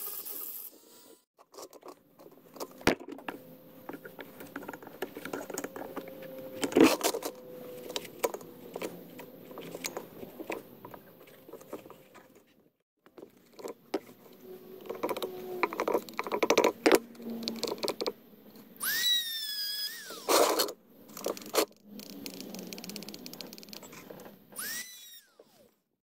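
Hands scraping, tearing and pulling cardboard and crumbly debris out of the inside of a small homemade furnace, with irregular crunching, scratching and scattered sharp knocks.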